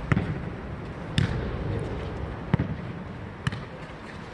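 A jokgu ball being kicked and bouncing on the court during a rally: four sharp thuds about a second apart, the last one fainter.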